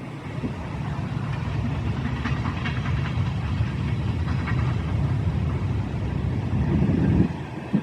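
Train passing with a steady low rumble and faint clatter, mixed with wind buffeting the microphone; the rumble drops away sharply about seven seconds in, followed by a short thump.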